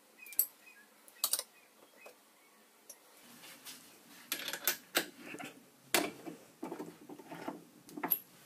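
Light metallic clicks and clinks of small machine-shop tools and parts being handled, a couple of isolated clicks at first, then a busier run of clicks and short clanks from about three seconds in.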